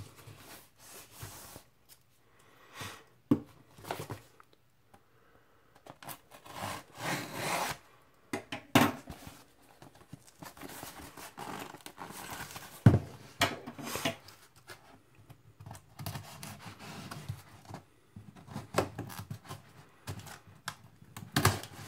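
Cardboard LP mailer being opened by hand and with scissors: irregular tearing, scraping and rubbing of cardboard, with a few sharp knocks.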